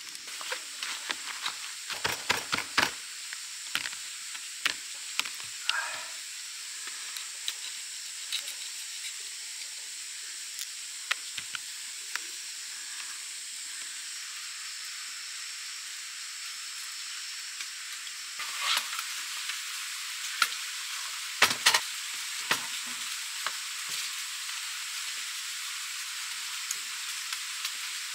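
Clicks and crinkles of a thin plastic food tray as raw shrimp are handled and peeled, over a steady high hiss.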